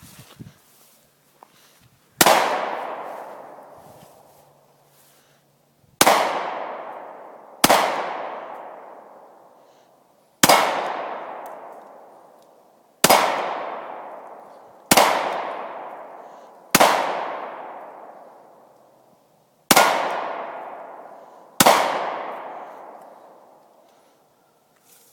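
Nine shots from a Glock 27 .40 S&W subcompact pistol, fired one at a time at an unhurried, uneven pace, each shot followed by a long fading echo.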